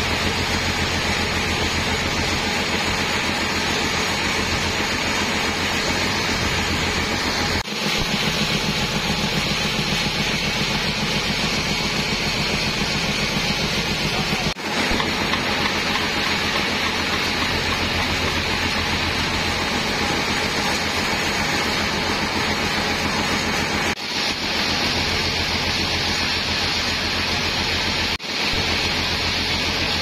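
Band sawmill running steadily, its blade cutting a teak log lengthwise.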